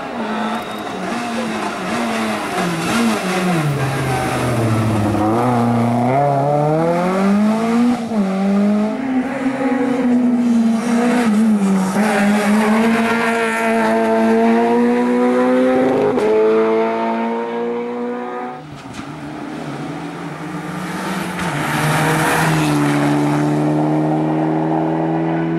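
Rally car engine working hard on a stage, its note repeatedly dropping and climbing as the driver brakes, shifts gear and accelerates. The sound eases briefly about two-thirds of the way through, then a steady loud engine note builds again near the end.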